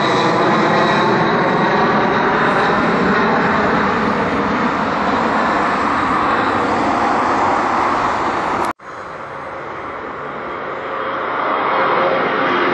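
Jet engines of a Boeing 767 climbing out after takeoff: a loud, steady rush of engine noise with a thin high whine and tones that slowly sweep up and down. About three-quarters of the way through it cuts off abruptly. A quieter jet sound from a Boeing 757 lifting off then builds up.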